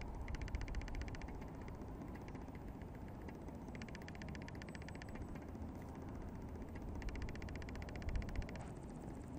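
Insects in the grass chirring: bursts about a second long of rapid high-pitched pulses that start and stop every second or two, over a low rumble of wind or handling noise with a soft bump near the end.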